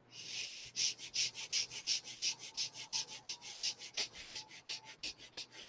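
Quick, short, gentle breaths through both nostrils, about three a second in an even rhythm, as a rapid breathing exercise.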